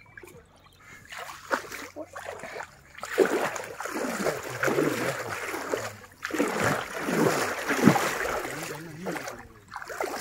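Water splashing and sloshing in a shallow river as people wade and work a net, in two long, uneven stretches of splashing, with faint voices now and then.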